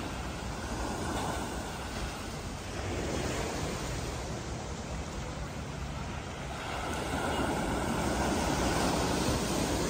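Small sea waves breaking and washing up onto a rocky, sandy shore, the surf growing louder about three seconds in and again from about seven seconds as larger waves break.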